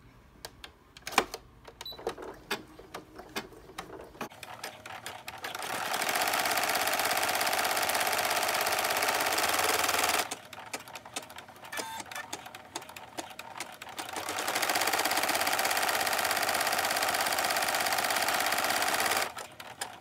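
Single-needle home embroidery machine running a stitch-out, in sped-up footage. There are scattered clicks over the first few seconds, then two stretches of steady, fast stitching of about four to five seconds each, with a few seconds of lighter clicking between them.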